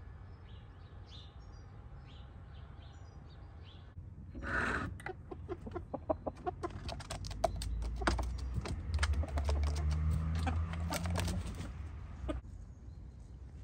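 Faint birdsong, then from about four seconds in a loud burst followed by many short, sharp clucking calls from poultry in a wooden coop, densest in the second half.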